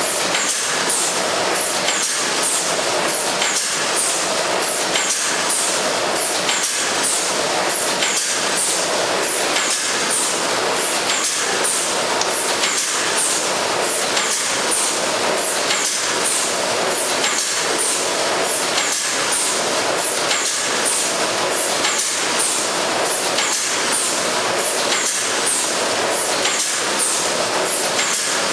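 Smart Weigh horizontal pouch packing machine running: a steady clatter of rapid mechanical clicks, with short high hisses repeating several times a second and a rhythmic pulse about once a second.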